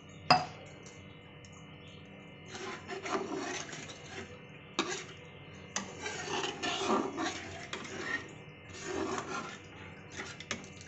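Steel spatula stirring and scraping through a thin, watery mustard-masala gravy in a kadhai, in bursts of scraping with a few short knocks against the pan. A sharp clink sounds just after the start.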